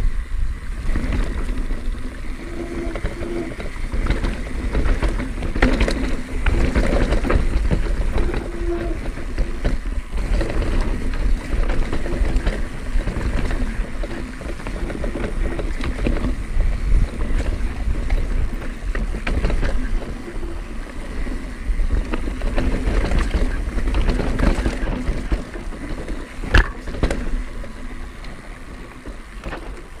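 Pivot Switchblade full-suspension mountain bike rolling fast down a dirt trail, heard from a body-mounted camera: wind buffeting the microphone over a steady rumble, with the rattle and knocks of the bike over roots and rocks.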